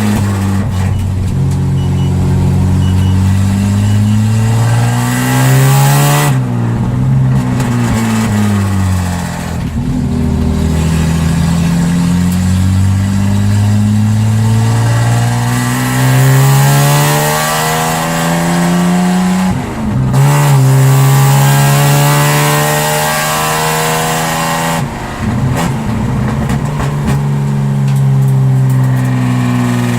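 Jaguar XJ6 Series 1 straight-six running loud and raw without its full exhaust fitted, while the car is driven. The engine note climbs in pitch under acceleration and drops back at several gear changes.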